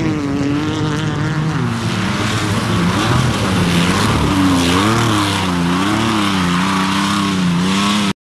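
Off-road race truck engine revving hard, its pitch rising and falling again and again with the throttle. The sound cuts off abruptly a little before the end.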